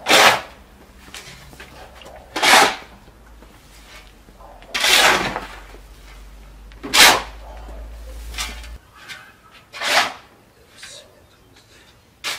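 A metal spade scraping across concrete and scooping and tossing loose gravel from a pile. There is one sharp, gritty stroke every two to two and a half seconds, five in all.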